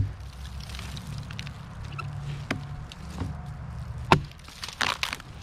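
Small hatchet chopping into a dead pine log: several sharp wooden chops at uneven intervals, the loudest at the start and about four seconds in, with lighter strikes between. The blade is cutting away the wood of a lightning wound to reach resin-soaked fatwood.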